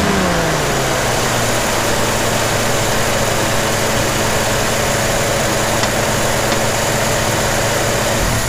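Carbureted Jeep CJ7 engine idling: its speed drops back over the first second, then it holds a steady idle while the Weber 32/36 idle mixture is being leaned out against a vacuum gauge.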